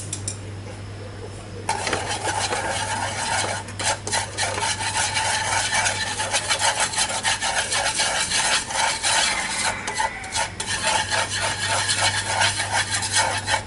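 A utensil stirring and scraping granulated sugar in oil around a nonstick frying pan, in quick repeated strokes. The stirring starts about two seconds in and pauses briefly near ten seconds. It is the start of cooking sugar into caramel colouring, while the sugar is still grainy.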